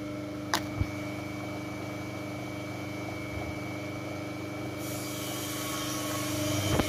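Sliding-gate motor running on the bench after the remote is pressed: a steady electric motor hum, with two sharp clicks within the first second. It is working again after a repair for the fault of power on but no movement. It grows louder toward the end, with a knock just before it ends.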